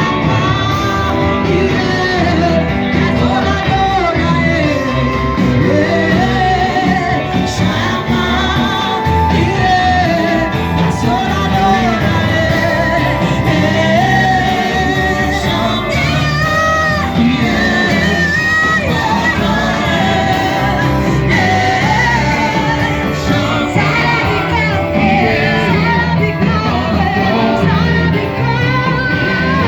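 Loud amplified church worship music with a steady beat, voices singing and shouting over it.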